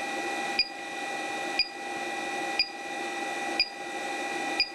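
Inverter low-battery alarm beeping, one short beep about once a second, over a steady electrical whine. It sounds as the battery under load sags to about 10.5 volts, near its cutoff.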